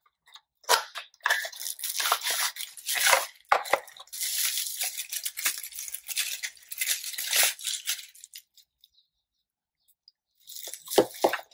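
Hands opening a small cardboard box and unwrapping a plastic bubble-wrap bag: a dense run of crinkling and tearing that stops about eight seconds in. A few short clicks near the end.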